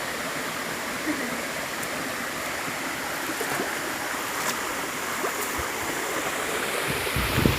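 Waterfall rushing steadily, with a brief low rumble near the end.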